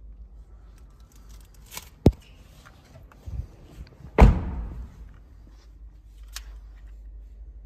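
Toyota Fortuner's doors shutting: a sharp knock about two seconds in, then a louder, heavier door slam about four seconds in that rings briefly in the hall, over a low steady hum.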